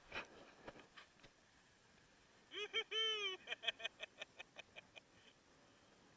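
A gull calling faintly: about two and a half seconds in, two short notes and a longer arched note, then a quick run of shorter notes that fade out. A few faint clicks come in the first second.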